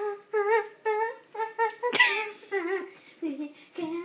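A high voice singing or humming a string of short wordless syllables, with a sharp click about two seconds in.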